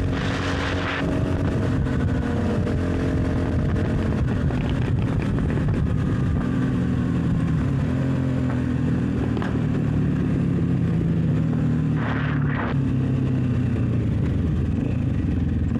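1998 Honda XR650L's single-cylinder engine running under way at road speed, its note shifting in pitch with the throttle. Wind rushes over the bike-mounted microphone, with brief louder gusts near the start and about three-quarters of the way through.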